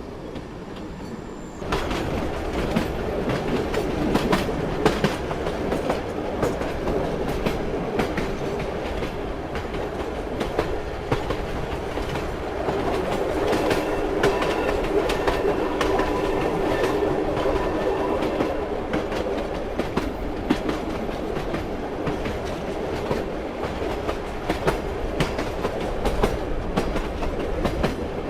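Train running on rails: a steady rumble with the clickety-clack of wheels striking rail joints. It grows louder about a second and a half in, and a faint steady whine joins in the middle.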